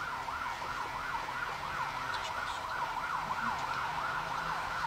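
Emergency-vehicle siren in a fast up-and-down yelp, repeating about three times a second.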